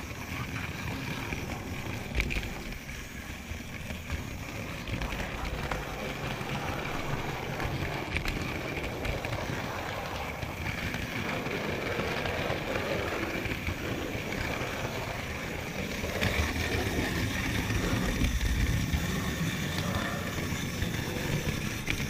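Model railway train running along the track: a steady rumble of wheels and running gear with a constant high whine over it, and a few clicks along the way.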